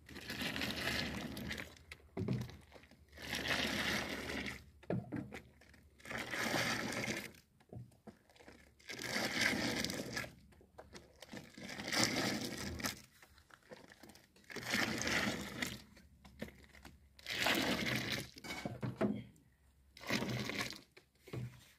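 Hot grape molasses (pekmez) being ladled up and poured back into a large metal pan, over and over. Each pour is a splashing stream lasting about a second, coming roughly every two and a half seconds. This is the tossing (savurma) of the molasses.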